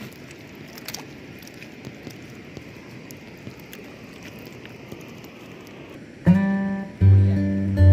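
Faint rippling water and wind noise, then about six seconds in loud background music with guitar starts suddenly.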